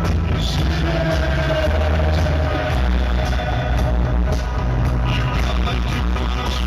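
Live synth-pop music played over a PA, with a heavy, steady bass line and a held synth or vocal note, in a poor, boomy audience recording.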